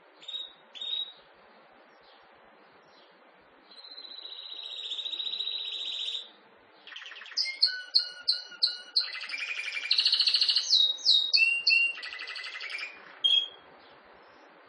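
Domestic canary singing: two short chirps, then a fast trill that swells for about two seconds, then a louder varied song of quick repeated notes and rolling trills.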